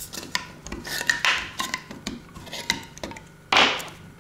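Hand-held opener scraping and levering the tin lid off a glass jar, in a series of irregular metal-on-metal scrapes. The loudest and longest scrape comes near the end, as the lid comes free.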